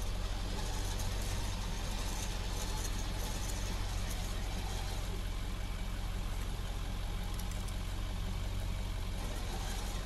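Vehicle engine idling steadily, a low even hum with no change in speed.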